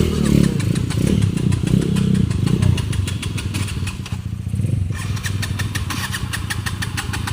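Trail motorcycle engine held at high revs, its rapid exhaust pulses crackling; the revs ease briefly about four seconds in, then pick up again.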